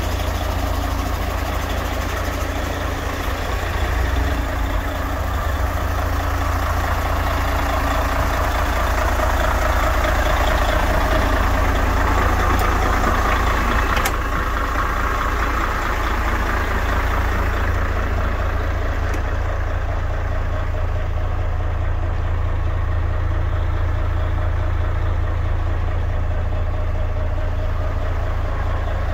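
Mercedes-Benz Actros 1840 tractor unit's diesel engine idling steadily. A single sharp click comes about fourteen seconds in, and later the engine sounds more muffled, heard from inside the cab.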